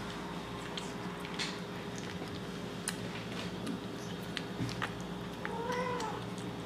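A kitten eating wet cat food from a bowl: small wet smacking and chewing clicks throughout, with one short rising-and-falling mew near the end.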